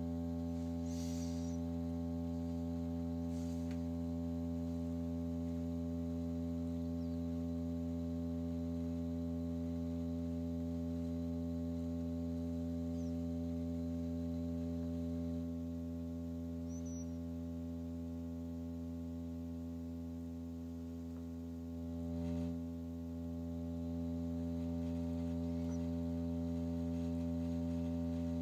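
Steady low electronic drone, a hum with many overtones that holds one unchanging pitch, with a brief dip and swell about three-quarters of the way through.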